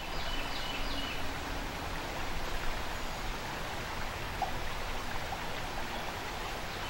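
Shallow stream running over a rocky riffle: a steady rush of water. A bird chirps a few times in the first second.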